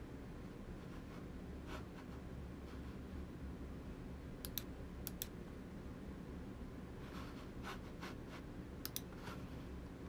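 Quiet room tone with a low steady hum, broken by a few short sharp clicks, mostly in quick pairs, around the middle and near the end.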